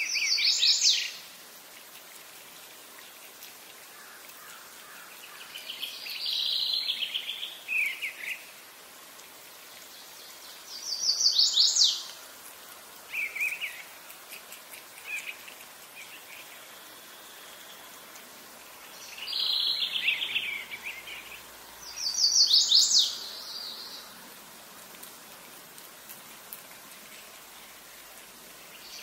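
A songbird singing short high phrases of quick notes that drop in pitch, about six phrases a few seconds apart, over a faint steady outdoor hiss.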